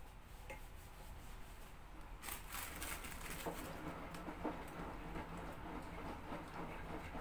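Soft clicks, taps and rustling of soft biscuits being handled and set down in a glass baking dish, busier from about two seconds in.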